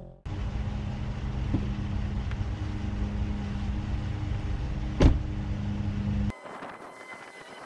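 Ram pickup truck idling steadily, with its driver's door slammed shut about five seconds in; the idle cuts off abruptly about six seconds in.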